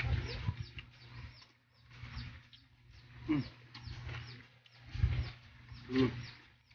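A dog whining and growling in short bouts, several times.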